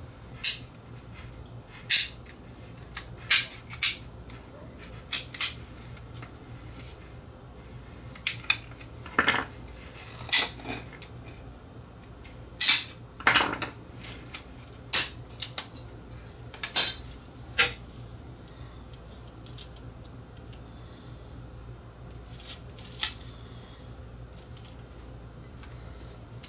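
Sharp hard-plastic clicks and clacks from a cassette tape shell being handled and taken apart: about twenty separate taps at irregular intervals, over a faint steady low hum.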